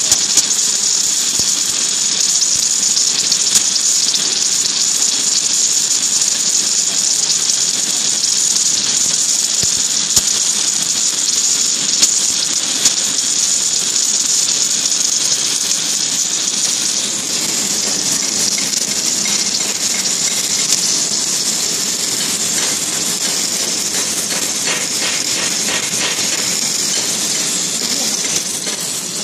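Submerged arc welding of a steel seam under granular flux: a steady hiss with occasional faint clicks.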